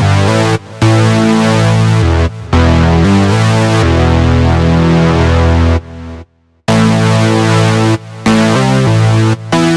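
Synthesizer keyboard playing held chords that change abruptly every second or so, each cut off sharply, with a brief break about six seconds in.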